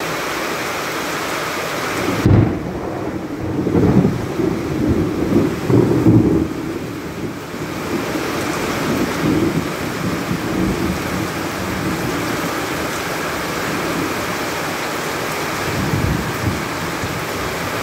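Heavy rain pouring steadily onto a wet paved yard, with a long roll of thunder starting about two seconds in and rumbling for several seconds, and a shorter rumble of thunder near the end.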